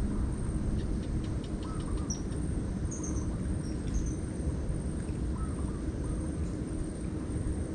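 Outdoor ambience: a steady low rumble under a few short bird chirps, heard mostly between about two and four seconds and once more near five seconds. A quick run of light ticks comes about a second in.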